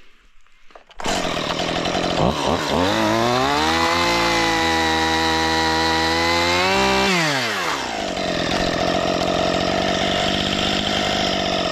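Chainsaw running: it starts suddenly about a second in, revs up over a couple of seconds and holds high, drops back about two-thirds of the way through, then runs steady again.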